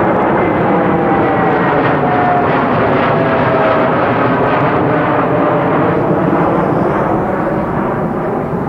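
Japan Airlines Boeing 787 climbing out low overhead after takeoff, its jet engines loud and steady at climb power, with a whine that falls in pitch as it passes.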